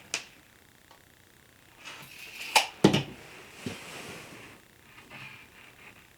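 Handling of measuring and marking tools on a plywood panel: two sharp clicks a little under three seconds in, with a short stretch of rubbing and a few lighter taps.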